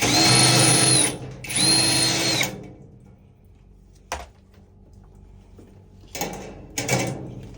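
Electric screwdriver whirring in two short runs of about a second each, its pitch dropping as it stops, as screws are backed out to open a vacuum sealer. This is followed by a sharp click and, near the end, two brief clattering knocks of parts being handled.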